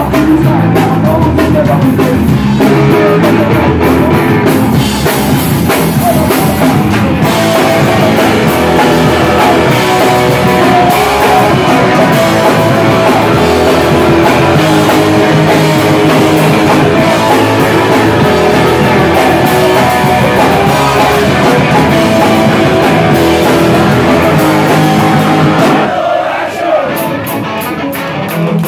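Live rock band playing loud: electric guitar, drum kit and a singer on a microphone, heard through a phone's microphone in a small, packed bar. Near the end the low end thins out and the sound drops back to a lighter, sparser part.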